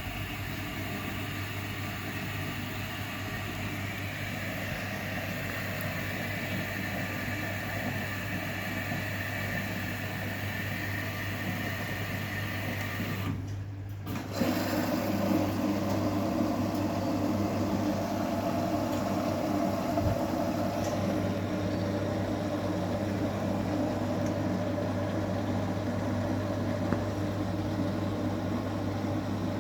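Samsung WF0600WJV front-loading washing machine running a wash cycle, its motor humming steadily as the drum turns. The sound breaks off briefly about halfway through, then carries on louder.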